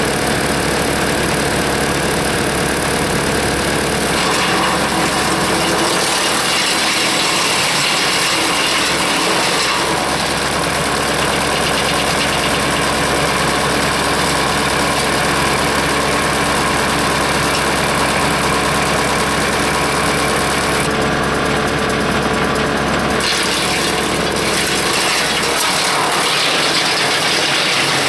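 Hanmey WCX5 PTO wood chipper running off a 30 horsepower tractor, the tractor engine and chipper rotor making a loud, continuous din that shifts in texture several times.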